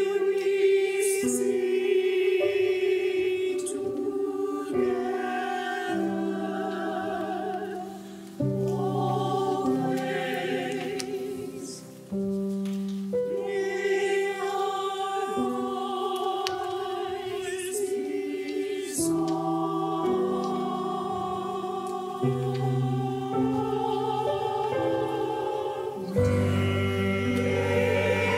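Mixed choir singing a slow piece in sustained phrases with vibrato, breaking off briefly about eight and twelve seconds in, with lower voices coming in stronger near the end.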